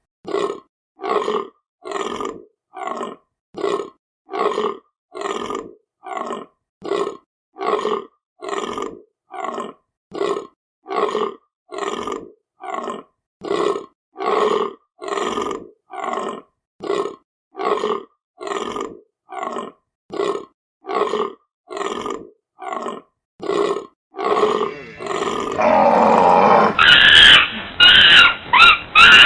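Deer grunting over and over, short calls evenly spaced at about one every 0.8 seconds. About 25 seconds in, a louder, more continuous animal call takes over.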